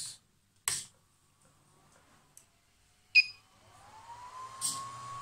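Ender 3 3D printer powered on: a sharp click with a brief chirp about three seconds in, then its cooling fans spin up with a rising whine that levels off, over a low hum.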